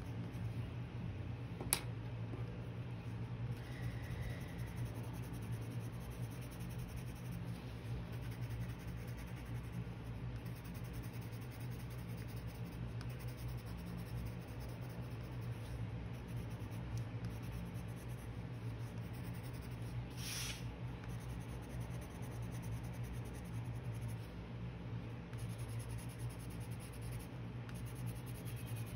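Coloured pencil scratching and rubbing across paper over dried watercolour in steady, continuous strokes, with one sharp click about two seconds in.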